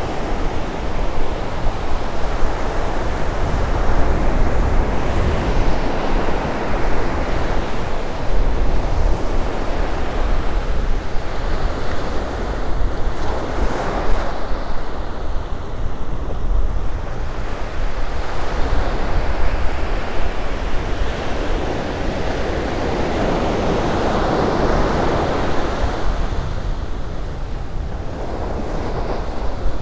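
Ocean surf: small waves breaking and washing up a sandy beach in repeated swells, the strongest near the end. Wind buffets the microphone with a low rumble underneath.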